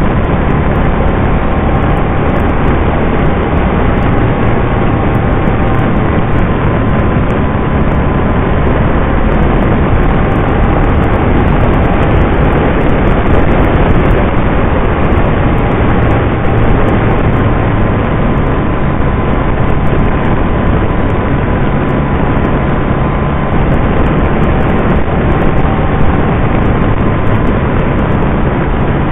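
Can-Am Spyder RT three-wheeled motorcycle cruising at a steady speed: loud, even engine and wind noise with a faint steady whine running through it.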